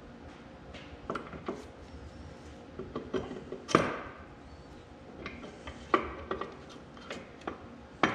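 Scattered light metal clinks and knocks of a steel countershaft and thrust washer being worked into an Oliver 1855 over/under powershift transmission case, with one sharper clank a little under four seconds in.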